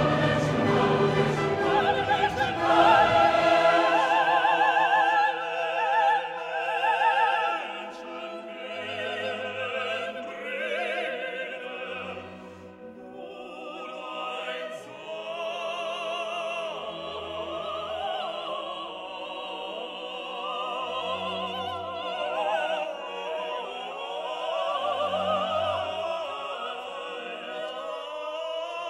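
Background classical music: an operatic singing voice with vibrato over orchestral accompaniment, with recurring low notes. It grows quieter about eight seconds in.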